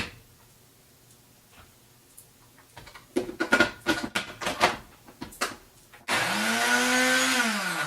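A few short knocks and scrapes, then a countertop blender motor switched on about six seconds in for a short burst, its pitch rising as it spins up and sagging near the end. It is blending a thick carrot and pine-nut mixture that is too dry to blend smoothly and needs water.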